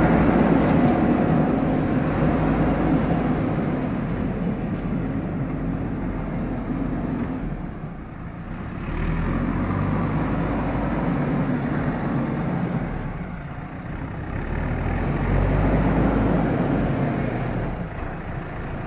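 JCB backhoe loader's diesel engine running as the machine drives and manoeuvres, the engine note rising and falling, dipping about eight and fourteen seconds in and picking up again after each.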